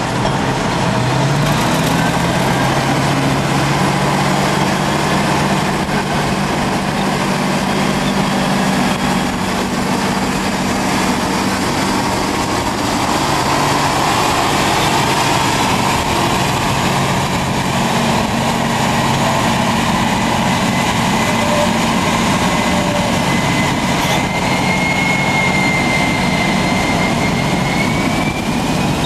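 Heavy diesel engines of a Caterpillar 631E wheel tractor-scraper and a Caterpillar D10N crawler dozer working hard under load as the dozer push-loads the scraper, a loud steady engine drone. A thin high squeal rises near the end.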